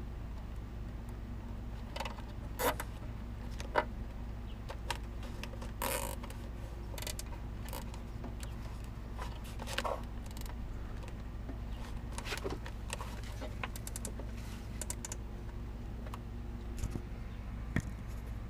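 Scattered light clicks and rattles of hands-on work on a car's wiring harness, over a steady low hum.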